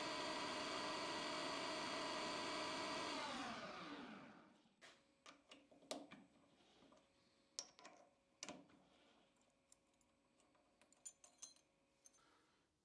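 Metal lathe spindle running with a steady multi-tone whine from its variable-frequency-driven motor and gearing, then winding down in pitch to a stop about four seconds in. After that, a few light metallic clicks and knocks as the three-jaw chuck is loosened with its chuck key and the part is handled.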